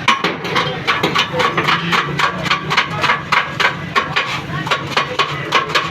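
Rapid, even chopping strikes during chicken shawarma preparation, about four a second, over a steady low hum.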